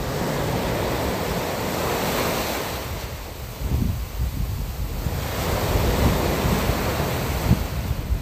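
Sea surf washing in two slow swells, the first about half a second in and the second about five seconds in, with wind gusting over the microphone.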